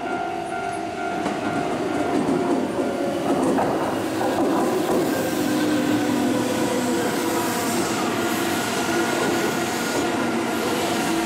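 Keihan electric train moving through the station: wheels on rail with a steady rumble and several whining tones over it, growing louder about two seconds in.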